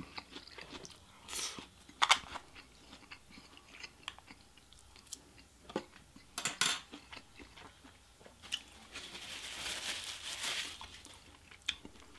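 A person chewing a mouthful of fried rice, with scattered crunches and small clicks, and a longer noisy stretch of chewing about nine seconds in.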